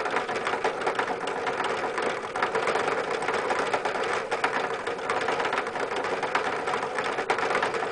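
Hamster exercise wheel spinning steadily as a dwarf Russian hamster runs in it, a fast continuous rattling clatter.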